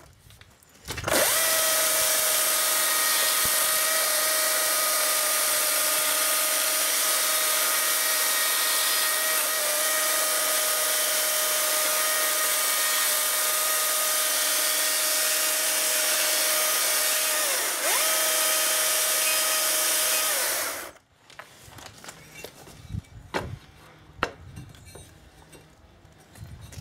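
Stihl chainsaw cutting into a wooden block held in a vise, running at a steady high whine. It cuts out and starts again right at the start, dips briefly and picks up again about two-thirds in, then stops abruptly, after which there are a few light knocks of the wood being handled.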